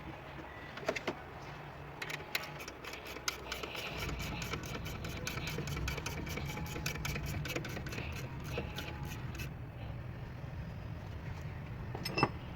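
Car engine running, its hum getting louder about four seconds in. Over it comes a fast, regular chirping tick, about five a second, which stops abruptly about three seconds before the end: the kind of belt noise the fan-belt fix is meant to cure.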